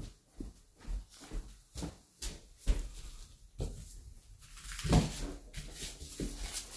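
Footsteps and small knocks of a handheld phone being carried across the floor, then a louder thump and a steady rustle about five seconds in as the wooden front door is reached and handled.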